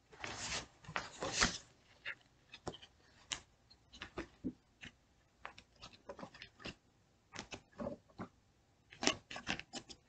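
Pages of a thick hardback dictionary being leafed through by hand: a run of short papery swishes and rustles, loudest in the first second and a half and again near the end.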